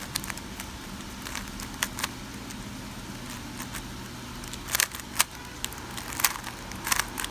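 GAN 356 X magnetic speedcube being turned fast in a solve: scattered plastic clicks and clacks of the layers snapping round, with louder flurries of turns in the second half.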